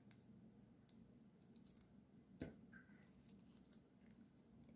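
Near silence: faint handling of a paper oval and foam adhesive dots, with one light tick about two and a half seconds in.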